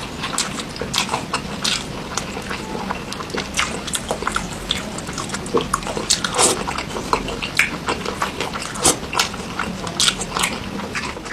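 Close-miked chewing and biting of sauce-covered crispy fried chicken, with irregular sharp crunches several times a second.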